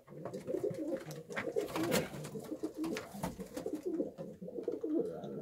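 Several racing pigeons cooing at once, their calls overlapping throughout, with scattered short clicks and knocks among them.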